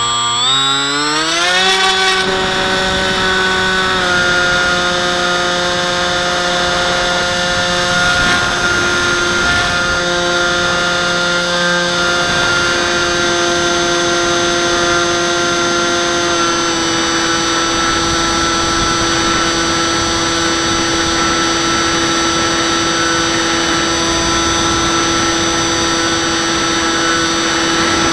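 Bixler 3 model plane's electric motor and propeller, heard close from the onboard camera: a whine that rises fast in pitch as the motor spins up to take off, then runs steadily, stepping slightly down in pitch about four seconds in and again about midway as the throttle is eased.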